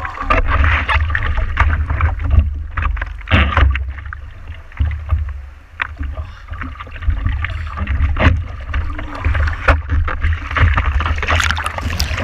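Seawater sloshing and splashing around a surfer and his surfboard, heard through a GoPro Hero4 right at the waterline, with a steady low rumble of water and wind against the camera housing. A rush of whitewater washes over the camera near the end.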